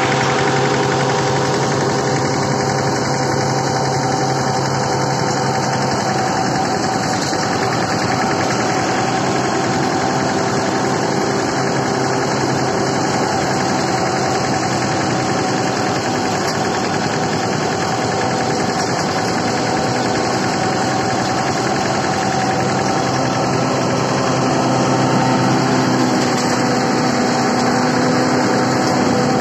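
Mahindra Yuvraj 215 tractor's single-cylinder diesel engine running steadily under load, driving a thresher through its rear shaft, with the thresher's steady mechanical whirr mixed in. It gets a little louder, with a new low hum, near the end.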